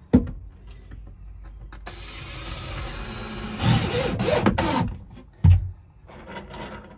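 Cordless drill running for about three seconds, starting about two seconds in and loudest near the end, as it drives a screw into the plywood nesting-box divider. A sharp wooden knock comes just before it and a heavier one about a second after it stops.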